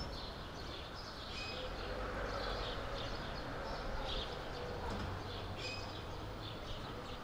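Small birds chirping and twittering in short repeated calls over a steady background hiss.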